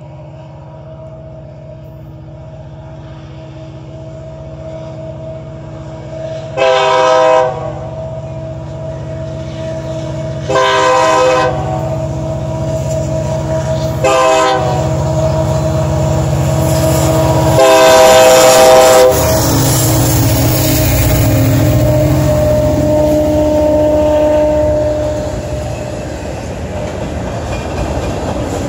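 Union Pacific diesel freight locomotives sound the horn in the grade-crossing pattern (long, long, short, long) as they approach, over a rumble that grows steadily louder. The locomotives then pass and the freight cars roll by with rattling wheel clatter near the end.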